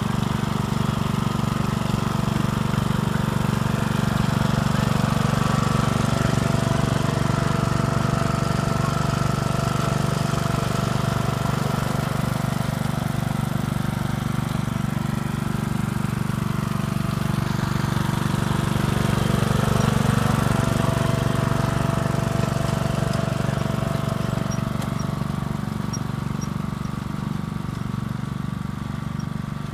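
Riding lawnmower engine running steadily under load while towing a wagon, with a faint high whine that comes and goes.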